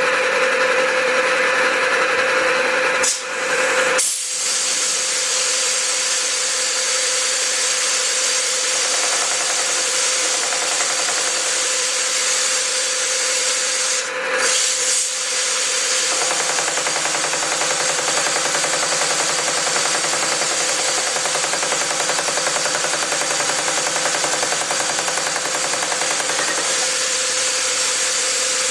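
Pullmax reciprocating sheet-metal machine running on long stroke at slow speed, its beading dies working a sample of 18-gauge steel: a steady hum under a fast, even chatter of strokes, briefly dipping about three seconds in and again about fourteen seconds in.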